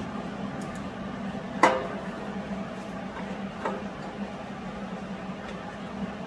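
Steel exhaust pipe being handled and fitted together at a cut joint: metal clinks, with a sharp knock about a second and a half in and a lighter one a couple of seconds later. A steady low hum runs underneath.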